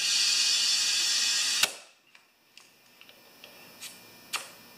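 Compressed air hissing from an air chuck into a snowblower tire's valve stem, about a second and a half of steady hiss that cuts off with a click as the chuck comes off. A few light clicks of metal fittings follow, with a sharper click near the end.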